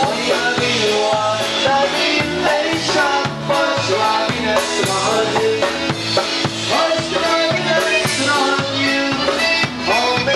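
Live polka band playing: accordion and keyboard carry the tune over a drum kit, with the bass alternating on an even oom-pah beat about twice a second.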